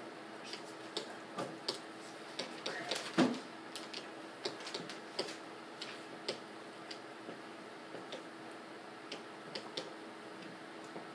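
Irregular light clicks and taps of a stylus on a tablet screen while handwriting, over a faint steady hum, with one louder knock about three seconds in.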